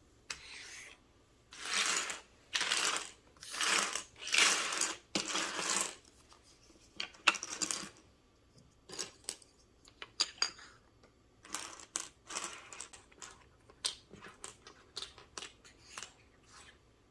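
Loose plastic keycaps clattering: several short bursts of rattling in the first six seconds, then many separate light clicks as the keycaps are picked up and set down.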